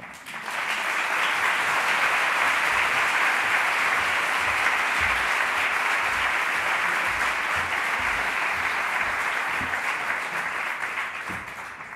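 Audience applauding: it swells quickly at the start, holds steady, and tapers off near the end.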